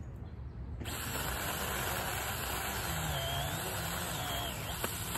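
JPOWTECH 4-inch cordless mini chainsaw (21 V battery) running in one burst of about four and a half seconds while cutting brush. It starts suddenly about a second in and stops near the end, its whine dipping in pitch twice along the way.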